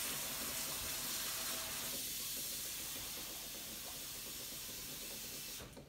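Kitchen faucet running cold water into a bowl in the sink, a steady hiss of water that changes in tone about two seconds in and shuts off just before the end.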